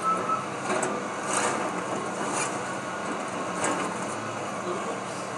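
Excavator's diesel engine running steadily while it tears into a wood-frame house, with a few sharp cracks and crunches of splintering timber and falling debris.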